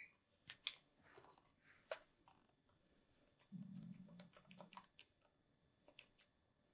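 Near silence with faint, scattered clicks from a marker on the glass lightboard and the keys of a handheld calculator being pressed, plus a soft low hum for about a second midway.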